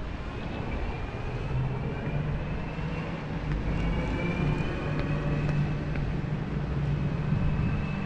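Outdoor city ambience: a steady low hum of motor traffic with a faint high whine that slowly rises, and a few light clicks.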